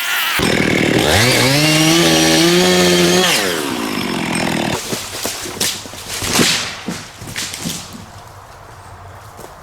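Chainsaw revving up from idle to full throttle and holding for a couple of seconds, then dropping off, followed by a series of sharp cracks and crashes as the tree breaks and falls through the branches.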